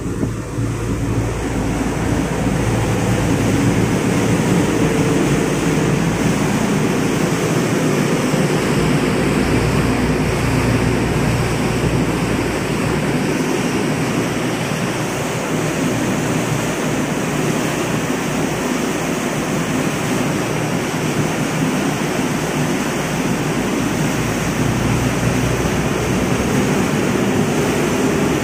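High-speed ferry under way: steady rushing of the churning wake water at the stern, with the low steady drone of the boat's engines underneath.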